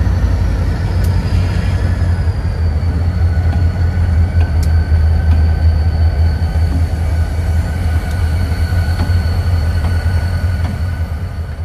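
Diesel freight locomotives running as they pass close by: a heavy, steady low rumble with a faint high whine that drops slightly in pitch in the first few seconds, then holds.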